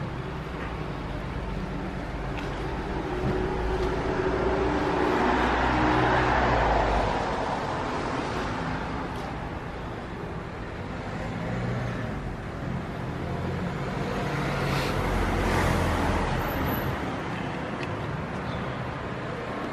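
Road traffic noise, swelling twice for a few seconds as vehicles pass.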